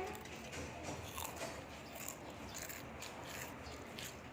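Close-up chewing of a crunchy snack, with a string of small, crisp crunches.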